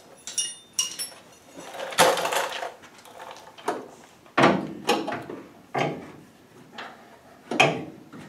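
Irregular metallic clanks and knocks of hand tools on a car's front suspension as a bolt is worked by hand, a few with a brief ringing of struck metal.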